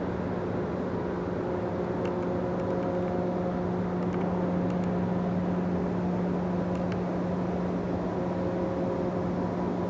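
Steady industrial drone from heavy plant machinery: a constant low hum with fainter higher tones that fade in and out, and a few faint clicks.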